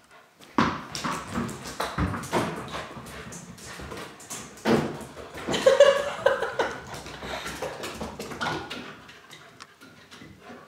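German Shepherd puppy playing on a hardwood floor: a busy, irregular run of clicks and knocks, with a brief vocal sound from the puppy about halfway through.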